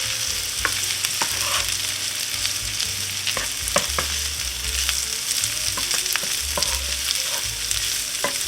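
Corned beef hash (chopped corned beef, potatoes and onions) sizzling steadily in butter in a hot frying pan, with a dozen or so short clicks and scrapes of a utensil stirring it.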